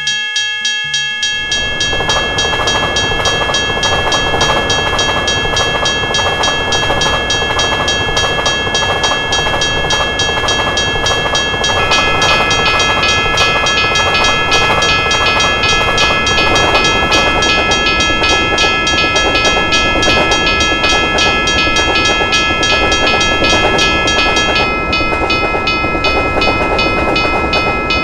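Railroad crossing warning bell ringing in steady strokes while a train passes, its wheels clattering on the rails. The bell's tones shift about twelve seconds in and again near the end.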